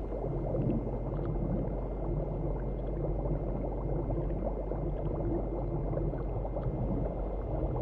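Underwater bubbling and gurgling sound effect: a steady, muffled bed of water bubbles over a low hum, meant to give the feeling of someone drowning.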